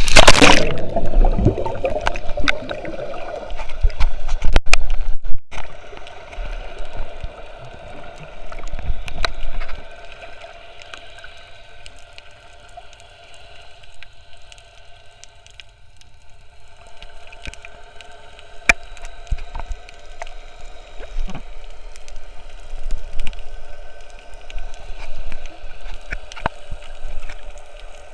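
An action camera goes into the sea with a splash, then picks up muffled underwater sound: water gurgling and sloshing around it, with scattered sharp clicks. The sound is loudest in the first ten seconds and fainter after that.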